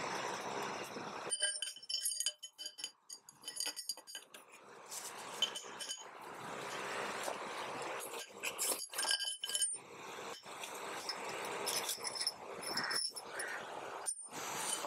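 Metal motorcycle fork parts clinking and ringing as they are handled and set down, many separate clinks with short high rings, with rustling handling noise between them.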